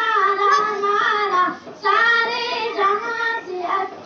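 A young girl singing a patriotic Hindi song into a microphone, unaccompanied, holding long notes with a short breath about a second and a half in.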